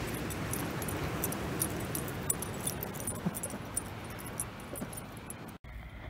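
Surf breaking on the shore, with wind noise and a scatter of sharp, crackling clicks. The sound cuts off abruptly near the end.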